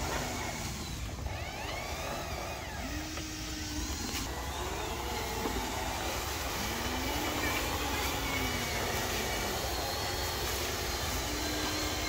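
Small electric motors of remote-control model trucks whining, their pitch rising and falling every few seconds over a steady low rumble and hiss.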